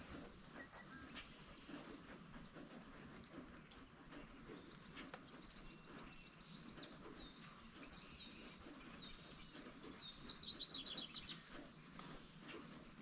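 Light rain pattering with scattered drops ticking close by, and a songbird singing over it: a string of short falling whistles, then a quick run of notes about ten seconds in, the loudest part.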